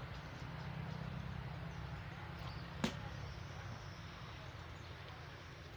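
Outdoor background noise: a steady low rumble with an even hiss above it, and a single sharp click about three seconds in.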